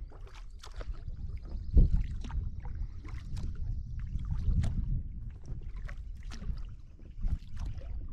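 Kayak paddling: a double-bladed paddle dipping and pulling through calm water in alternating strokes, with splashes and drips, over a low wind rumble on the microphone. A stronger low thump comes about two seconds in.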